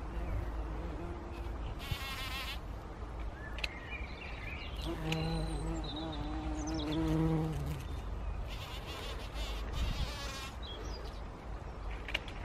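Bumblebee buzzing in flight around a flower, a low hum that comes and goes and is loudest about five to seven and a half seconds in. Short high, wavering trills sound about two seconds in and again around nine to ten seconds.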